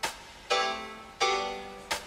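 Background music: chords struck about every two-thirds of a second, each ringing and fading away.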